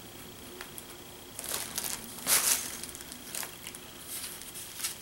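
Thin plastic wrapping bag crinkling and rustling as a camcorder is slid out of it, in a few bursts with the loudest crackle about halfway through.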